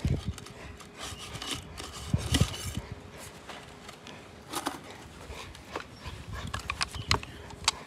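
Scattered light clicks, taps and rubbing at no steady rhythm: handling noise as a fresh 7014 electrode is picked up and fitted into the stick welder's electrode holder, with no arc running.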